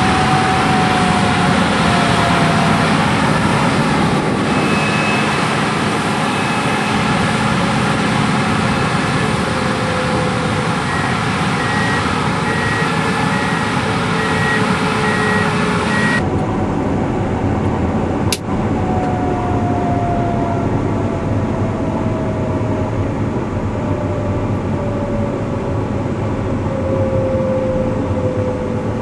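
Gleaner S77 combine harvester running steadily while cutting wheat, with slowly falling tones under the machine noise. Partway through, a rapid high beeping sounds for a few seconds; the sound then turns suddenly duller, and a sharp click follows shortly after.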